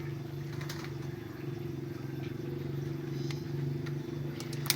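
Steady low mechanical hum, like a small engine or motor running, with a few faint clicks.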